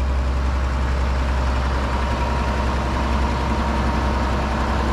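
John Deere 6600 combine running steadily as it moves off, a constant low engine drone with a faint steady whine over it from about a second in.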